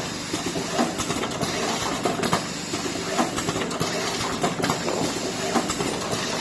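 Horizontal pouch packaging machine running: steady mechanical clatter with frequent sharp clicks from its moving parts.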